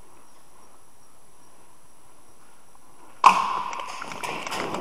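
A steady low background, then about three seconds in a sudden loud knock followed by quick, irregular clicks and scraping, like hurried handling or steps.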